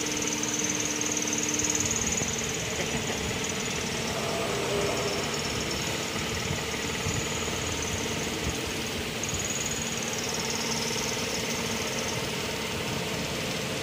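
45-degree tenon and mortise machine running with a steady mechanical hum while its axis moves under manual control, with a faint high whine that drops out and comes back.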